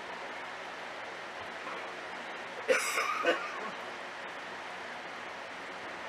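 Steady watery hiss from an aquarium. Near the middle comes one brief, louder sound in three quick pulses, lasting under a second.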